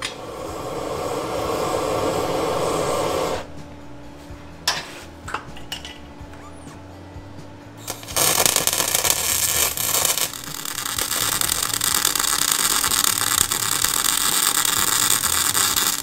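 MIG welder running beads on steel chassis rails: a steady crackling, frying hiss from the arc for about three seconds, then a few sharp clicks, then a second, longer spell of crackling from about eight seconds in.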